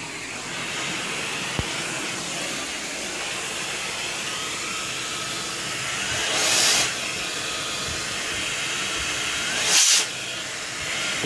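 Handheld vacuum cleaner running steadily, its nozzle held against a sleeping person's cheek, a steady rushing noise with a faint motor whine. It surges louder briefly about six and a half seconds in and again near ten seconds.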